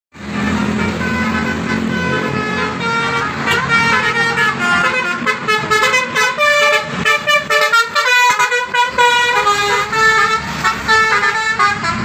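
Coach bus's multi-tone 'telolet' horn playing a fast melodic tune of stepped horn notes, several tones at once, with traffic running beneath.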